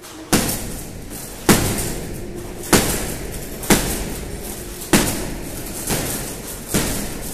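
Gloved punches landing on a hanging punching bag: about seven hard thuds at roughly one a second, each trailing off in the room's echo.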